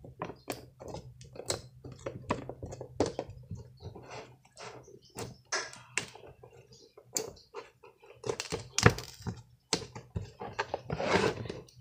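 Slime being squeezed, pressed and poked by hand in a plastic tub, giving irregular squishy clicks and pops, with a louder cluster near the end.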